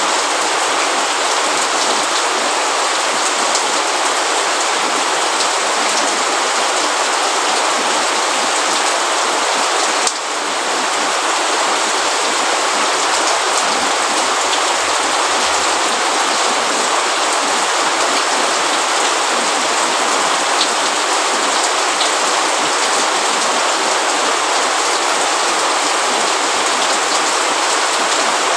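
Steady rain: a dense, even hiss of many drops falling on hard surfaces, with a brief dip in level about ten seconds in.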